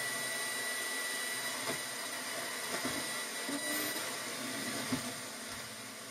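Steady radio static hiss from the speakers of a TESLA ST-100 stereo tuner that is receiving no station, with a thin whistle running through it and a few faint knocks. The tuner is faulty and cannot pull in any broadcast.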